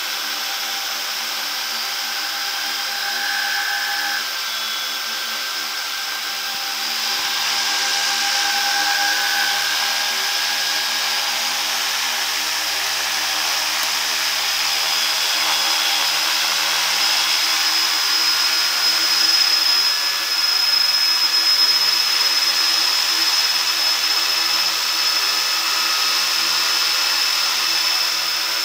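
Four T-Motor MN3110-15 780Kv brushless motors spinning 13-inch carbon fibre props at low throttle on a bench test of a quadcopter, a steady motor whine with prop wash. It gets somewhat louder about seven seconds in.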